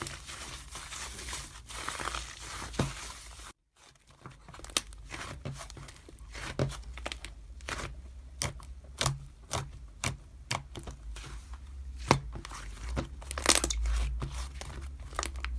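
Irregular light clicks and taps with faint rustling handling noise, over a low steady hum; the sound cuts out completely for a moment about three and a half seconds in.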